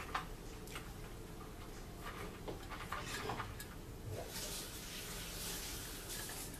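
Faint, scattered clicks and taps of tableware being handled at a table: a bowl and utensils knocking lightly. A soft rustling hiss joins for a couple of seconds about four seconds in.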